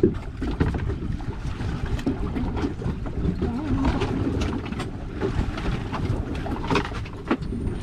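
Wind rumbling on the microphone aboard a small boat at sea, with water washing around the hull and a few light knocks from handling gear.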